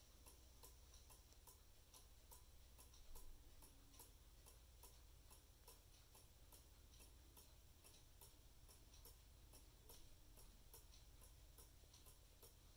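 Faint, quick, even ticking of a vintage J. Engstler one-day Black Forest cuckoo clock's mechanical movement, about two to three ticks a second, as the escapement and pendulum run.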